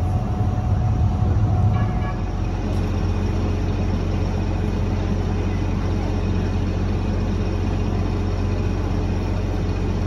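Diesel engine of a parked fire engine idling, a steady low hum that is a little louder in the first two seconds.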